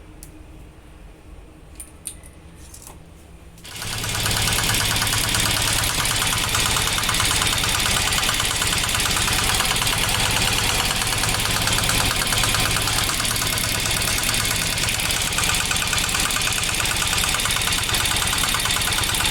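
Piaggio Porter 700's Greaves Cotton single-cylinder diesel engine starting about four seconds in, then running at a steady, rhythmic diesel clatter, after a few faint clicks. This is the engine running after the new clutch plate, pressure plate and release bearing have been fitted.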